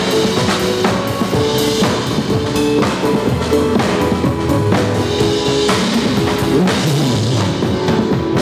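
Drum kit played to a pop-song backing track: kick, snare and cymbals keeping a steady beat over the recorded music.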